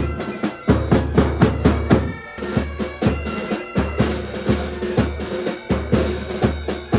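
Military pipe band playing: bass drum and side drums beating a steady march rhythm of about two strikes a second under the held tones of bagpipes.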